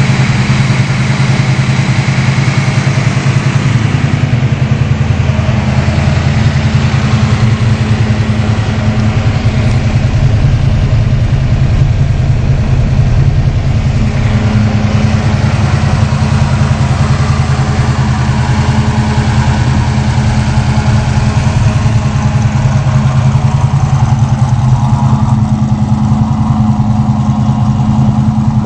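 1968 Plymouth Barracuda's 416 cubic-inch Mopar V8, built with a Comp 274S camshaft, TTI headers, a TTI X-pipe and an open-element air cleaner, idling steadily with no revving. It is heard first from the front of the car, then from the driver's seat, and near the end from behind the car at the exhaust.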